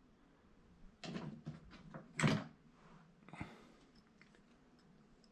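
Hands picking up a sculpting tool and handling a clay figure on a wooden workbench: a few short scrapes and knocks, the loudest about two seconds in, then a sharp click a little after three seconds in.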